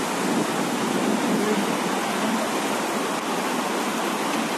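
Floodwater of a swollen river rushing past, a steady, even rush of water noise.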